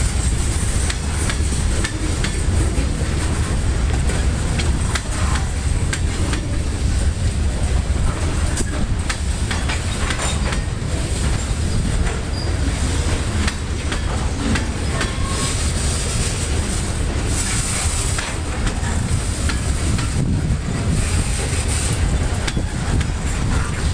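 Freight train moving slowly: the diesel locomotive's steady low rumble, with the cars' wheels clicking irregularly over rail joints.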